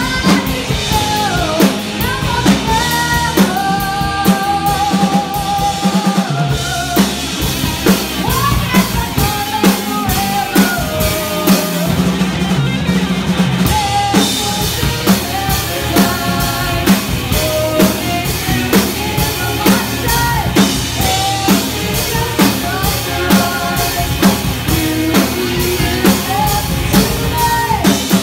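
Live rock band playing: a drum kit keeping a steady beat, electric guitars and bass guitar under lead and backing vocals.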